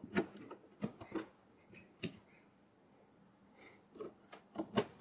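DDR3 memory modules being pushed into motherboard DIMM slots, the plastic slot latches snapping shut with short sharp clicks: a few in the first two seconds and another group near the end as the next module goes in.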